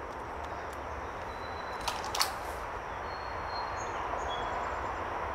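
Steady outdoor background noise from distant highway traffic heard through woods, with two sharp clicks close together about two seconds in.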